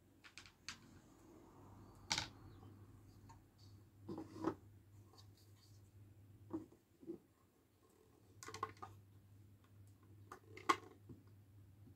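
Hard plastic toy bunk bed frames clicking and knocking as they are handled and stacked together: scattered sharp clicks, the loudest about two seconds in and near the end, with small clusters of taps around four and eight seconds in.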